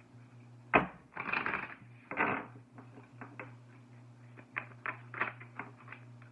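A deck of oracle cards being shuffled by hand. A sharp snap comes about a second in, then two short rustling riffles, then a run of light clicks and ticks as the cards are worked.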